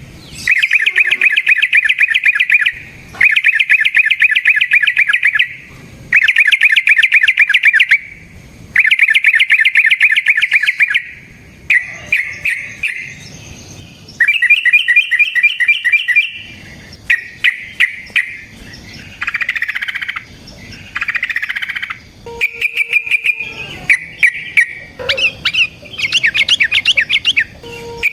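Yellow-vented bulbul (trucukan) singing: a run of long, fast rattling trills, each about two seconds with short pauses between. In the second half these give way to shorter, more varied chattering phrases.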